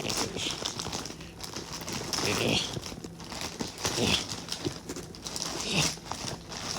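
Package crinkling and rustling as it is torn and pulled open by hand, in uneven bursts.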